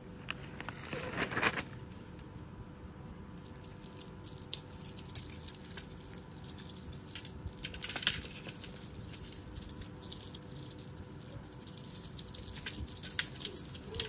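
Cats clawing, climbing and batting at a hanging cat-toy pole: scattered light clicks, scratches and rustles, the loudest a rustle about a second in.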